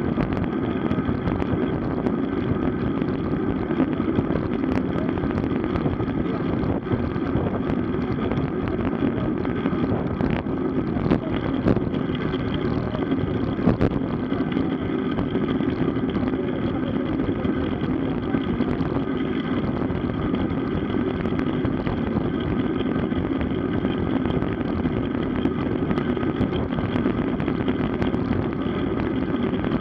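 Steady rushing wind and road noise from a road bicycle in motion, picked up by the camera riding along, with a few brief clicks scattered through it.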